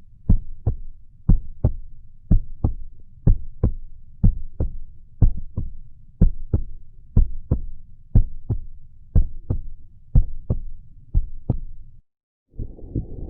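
Recorded human heartbeat: lub-dub pairs of sharp beats in a steady, regular rhythm of about one per second. Near the end the sound cuts out for half a second, then a different heart recording starts, with a continuous rushing noise between the beats.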